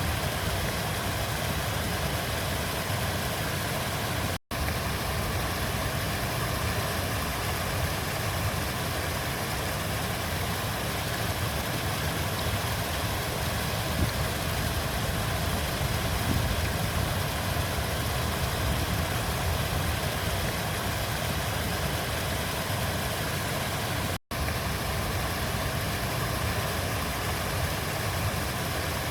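Steady rush of a flowing river, strongest in the low rumble. It cuts out for a split second twice, about four seconds in and again near the end.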